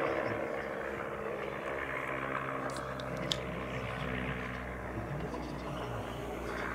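Sopwith Triplane's Clerget 9B nine-cylinder rotary engine running in flight, a steady drone with propeller rush that drops a little in level over the first second.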